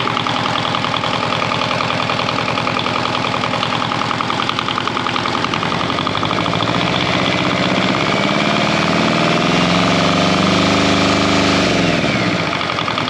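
Kubota two-cylinder diesel engine running while driving a car alternator that is charging two batteries. From about halfway through it revs slowly up, then drops quickly back to its lower speed about a second before the end.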